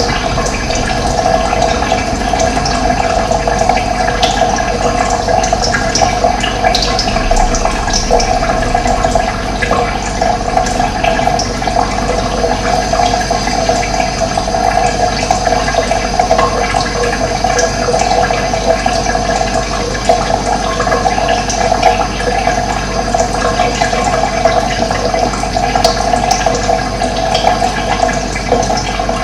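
Running water rushing steadily, an even, unbroken flow.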